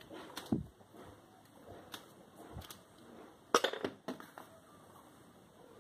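Quiet handling sounds of a large wooden-block rubber stamp pressed by hand onto corrugated cardboard, with a few soft knocks and a sharper clatter about three and a half seconds in as the stamp is lifted off.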